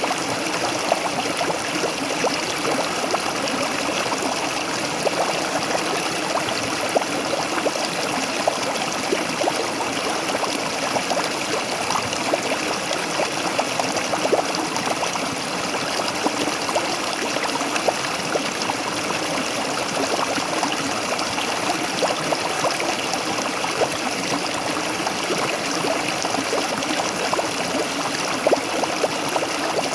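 Waterfall: water falling and splashing steadily, with small irregular splashes throughout.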